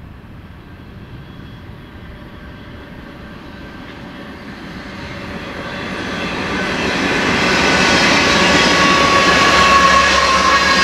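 Three BNSF diesel locomotives heading a double-stack intermodal freight train approach and pass, their engines growing steadily louder over the first eight seconds or so. The container cars follow, rolling by with a loud, dense rumble and a few thin high tones over it.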